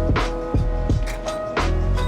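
Background hip hop music: a steady beat of sharp hits over a deep bass and held synth notes.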